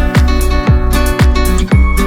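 Upbeat background music with a steady deep beat about twice a second and guitar-like plucked notes.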